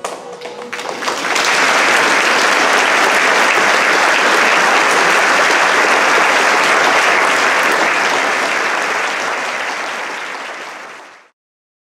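Audience applauding at the end of a folk-music performance, with the last note of the music dying away at the start. The applause swells within the first second and a half, holds steady, tapers off, then cuts off suddenly near the end.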